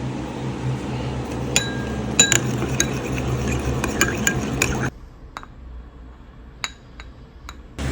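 Light metallic taps and clinks on a steel machete blade during salt-water electro-etching, each ringing briefly, over a steady low hum. About five seconds in, the background drops away suddenly and a few fainter taps follow.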